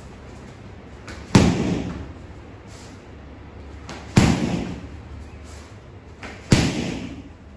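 Roundhouse kicks (mawashi geri) smacking into a handheld kick shield three times, a couple of seconds apart; each is a sharp, loud slap that dies away over about half a second.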